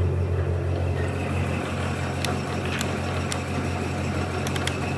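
2008 DoALL C916M horizontal band saw running with its coolant on: a steady low hum under a hiss, with several light clicks in the second half.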